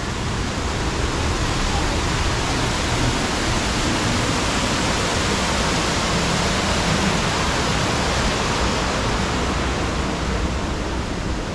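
Waterfall rushing steadily and evenly, with no breaks.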